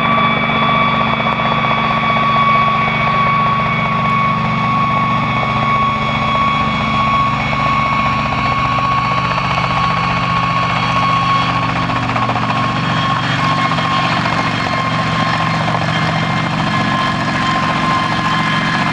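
Kamov Ka-26 helicopter hovering low and close, its two radial piston engines and coaxial rotors running. A steady high whine sits over a dense low drone.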